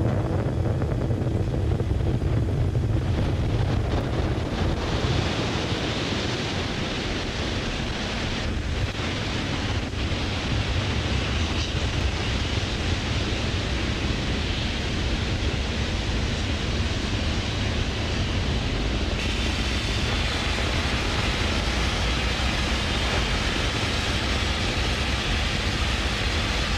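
Falcon Heavy's 27 Merlin 1D engines heard from the ground during ascent: a steady, deep rumbling noise with no pitch, growing a little brighter about five seconds in.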